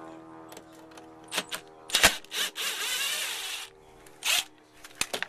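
Tool work on a car's interior trim and body: a few light clicks, a sharp knock about two seconds in, then a rasping, whirring noise lasting about a second, followed by a couple more clicks.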